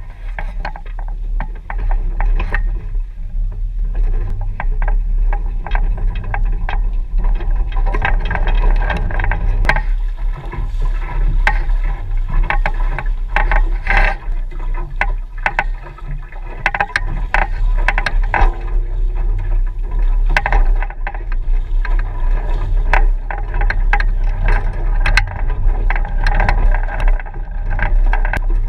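A Mirror sailing dinghy under way, heard from a camera on its boom: wind rumbling on the microphone and water washing along the hull, with a steady clatter of quick knocks and rattles from the boat's fittings and rigging.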